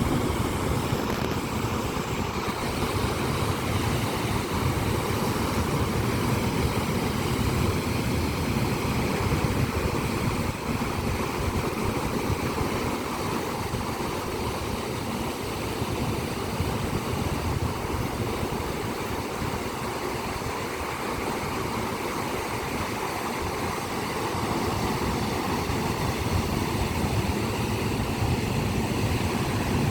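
Sea waves breaking and washing on the shore: a continuous heavy rush that swells and eases slowly, weighted toward the low end.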